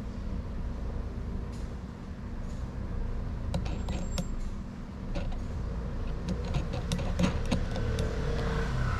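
Steady low rumble of a vehicle engine running at idle, with scattered light clicks and clinks from about three and a half seconds in.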